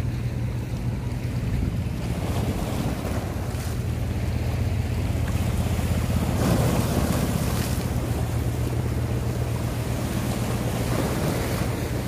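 Sea waves washing and breaking on rocky shore stones, with steady wind rumbling on the microphone. A larger wash of surf comes about six seconds in.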